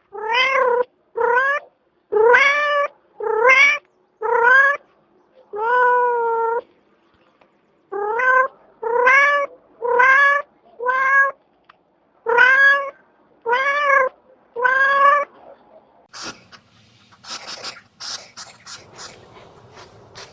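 Domestic cat meowing over and over, about thirteen short meows in three runs, each rising slightly in pitch. Near the end the meowing stops and a scratchy, clicking noise takes over.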